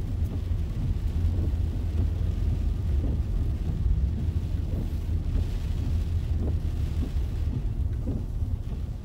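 Steady low rumble inside a parked car in rain, with the windshield wipers sweeping across the wet glass now and then.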